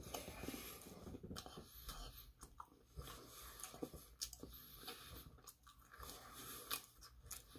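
Faint mouth sounds of a person biting into and chewing a slice of pizza, with soft wet clicks and a few small crunches of crust.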